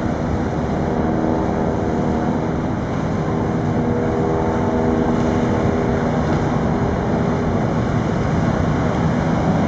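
Tugboat SD Stingray's engines running hard as it turns: a steady drone with several hum tones over a rough rumble, part of which is wind on the microphone.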